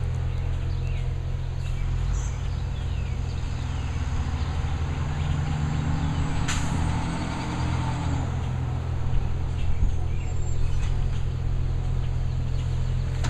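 Automated side-loading garbage truck's diesel engine running as the truck moves along the street, the engine note rising and then dropping back in the middle. There is a brief sharp hiss about six seconds in and a few louder knocks a few seconds later.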